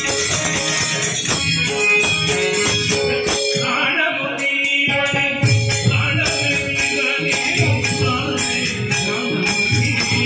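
A devotional bhajan sung by a group, carried on a steady jingling hand-percussion beat over a long held note.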